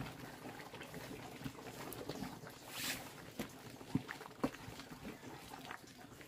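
A big pot of bran pig feed at the boil, stirred with a wooden paddle: bubbling and sloshing, with a short hiss about three seconds in and a few knocks of the paddle on the pot soon after.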